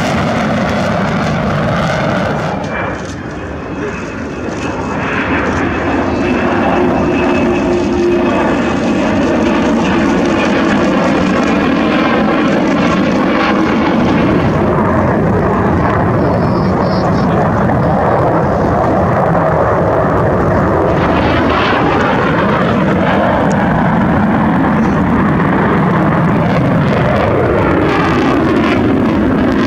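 Loud, steady jet engine noise from F-4 Phantom II fighters flying past, from their twin J79 turbojets. The level dips briefly about three seconds in, then stays loud.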